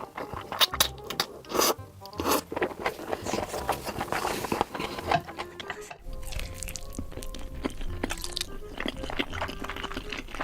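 Close-miked eating sounds, crunchy bites and chewing, over background music. About six seconds in the sound changes abruptly: the crunching thins out and the music's held tones come forward.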